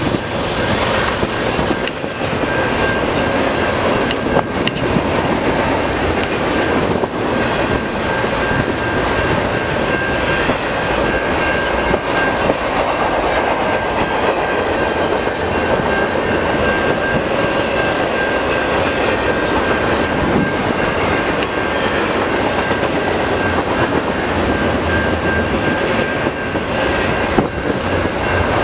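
CN double-stack intermodal freight train's container cars rolling past close by: a steady loud rumble of steel wheels on the rails, with a thin, steady high whine running through it.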